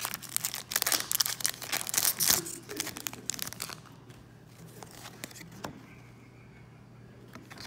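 Foil booster-pack wrapper being torn open and crinkled, a rapid run of crackles for the first three and a half seconds. Then fainter rustling and a few light clicks as the trading cards are handled.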